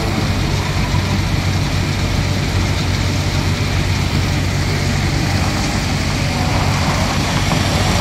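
Iveco heavy tipper truck's diesel engine running steadily under load as the loaded rig pulls slowly forward on gravel, with its hydraulic front-wheel drive assist engaged.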